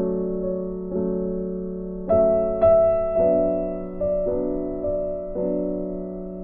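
Background music: soft piano chords, a new chord struck about once a second and left to ring.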